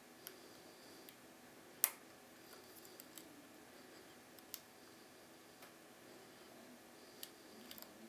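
Faint, scattered metallic clicks of a lock pick and tension wrench working the pins of a brass TESA T60 pin-tumbler cylinder, with one sharper click about two seconds in.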